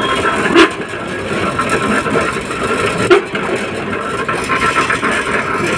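Heavy construction machinery engine running steadily during a pile concrete pour, with two sharp metallic knocks, about half a second and three seconds in.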